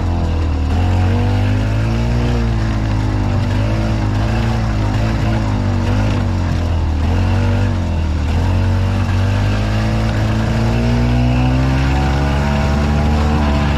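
Golf cart's gasoline engine running as the cart drives, its pitch rising and falling with the throttle.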